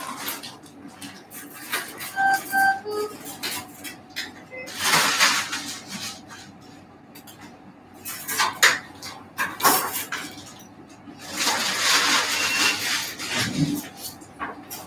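Surgical drapes rustling as they are handled, with sharp metallic clicks and clinks of towel clamps and other steel instruments. A few short electronic beeps sound about two seconds in.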